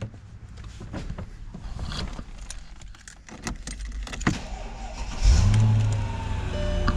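A few clicks and knocks from the cabin, then about five seconds in the 2001 Mercedes-Benz CL500's 5.0-litre V8 fires on a cold start, flaring up and settling into a steady idle.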